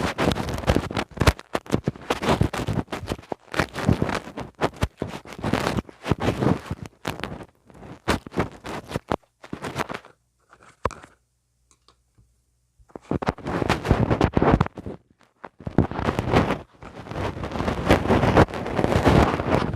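Ear-cleaning tool scratching and scraping close against a mini microphone, with dense crackling strokes in irregular runs. It stops for a few seconds midway, then starts again.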